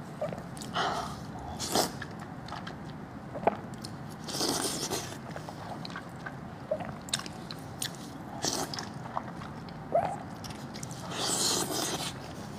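Close-miked eating sounds: soft sheep brain in chili oil squished by gloved hands, sucked and chewed with wet smacks and clicks. There are two longer sucking slurps, about four and eleven seconds in.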